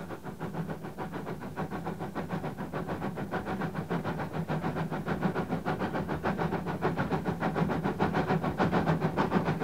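Small industrial steam tank locomotive hauling loaded wagons, its exhaust chuffing in rapid, even beats and growing louder as it draws nearer.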